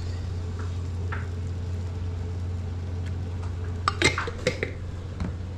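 Marinara sauce being poured from a glass jar over fish in a foil pan, over a steady low hum. A few sharp clinks and taps of the jar come about four seconds in.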